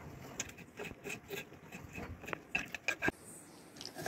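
Knife cutting tomatoes: irregular light taps and ticks that stop about three seconds in.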